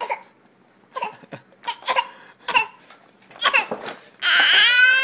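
A baby of nearly 8 months fake coughing: a series of short, separate coughs. Near the end comes the loudest sound, a long vocal sound that falls in pitch as it fades.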